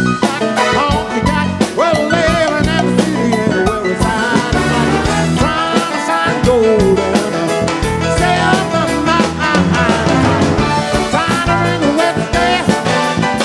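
A live band playing an upbeat instrumental passage: piano, electric bass and drum kit with a steady beat.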